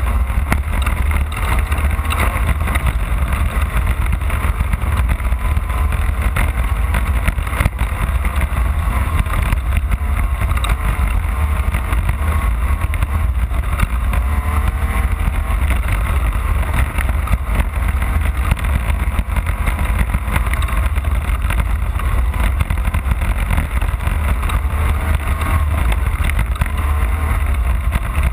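Onboard sound of an off-road race car's engine running hard at rising and falling revs, over a heavy steady low rumble.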